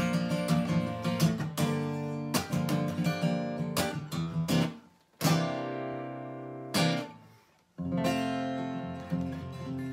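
Acoustic guitar strummed in a steady rhythm, then about five seconds in a few single chords struck and left to ring, the last one dying away slowly: the closing chords of the song.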